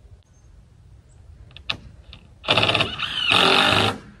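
Power drill driving screws through 3/4-inch plywood into a 2x4 post: a sharp click, then two short runs of the drill, the second a little longer.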